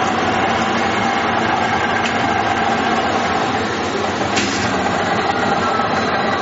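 Verkon PAB-350 vertical two-spindle glass-working machine running through its automatic cycle: a steady machine hum, with two faint clicks about two and four seconds in.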